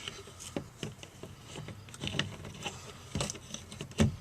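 Handling noise while fitting a car speaker and its adapter bracket: a handful of separate knocks and clicks of parts and screws being handled, the loudest near the end.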